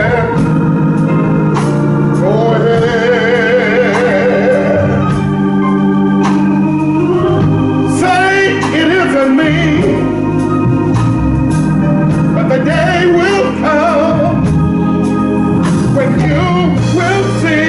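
A man singing a gospel song in long held notes with a wide vibrato, over sustained organ chords.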